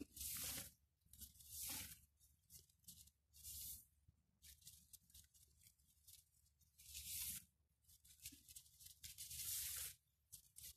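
Long Siberian iris leaves rustling in short bursts, about five of them, as they are gathered and plaited by hand.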